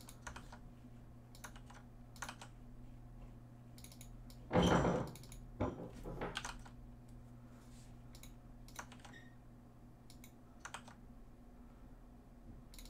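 Typing on a computer keyboard: scattered key clicks, with one louder short noise about four and a half seconds in.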